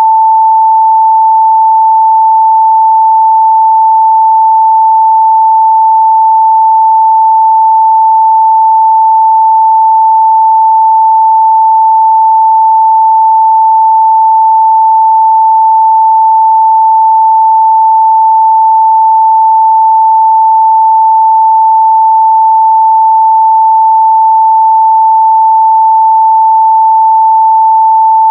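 A pure 885 Hz sine test tone, a single steady pitch held at a constant loud level, used for checking speaker and headphone response in the midrange.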